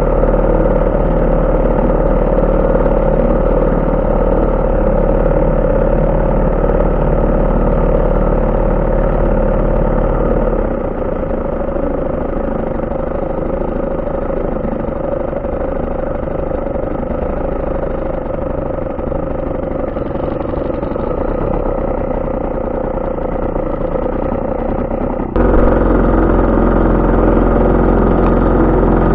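HDX 3.6 hp two-stroke outboard motor running steadily under way. About ten seconds in its note drops and loses its deep low end, and it comes back abruptly about twenty-five seconds in.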